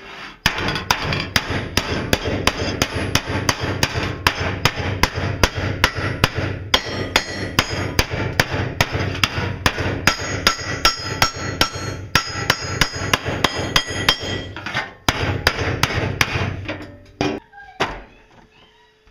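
Hand hammer striking a steel sheet over a steel block, hammering down a bent-over edge: rapid, steady metallic blows about three to four a second, each ringing off the sheet. There is a brief pause, and then the blows stop a couple of seconds before the end.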